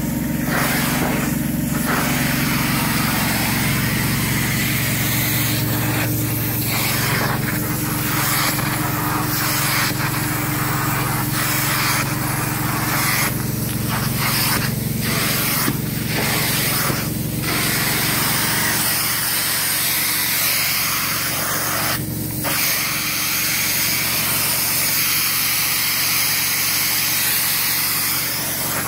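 Truck-mounted upholstery extraction tool spraying and vacuuming a microfiber chair cushion: a steady loud rush of suction and spray over the low drone of the truck-mount machine. The rush dips briefly again and again as the tool is passed over the fabric.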